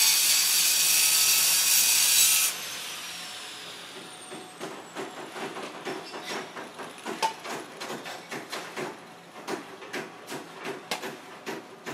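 Circular saw running through a cut with a loud, high steady whine that stops abruptly about two and a half seconds in, then the blade winding down with a faint falling whine. After that come irregular sharp knocks and taps, several a second.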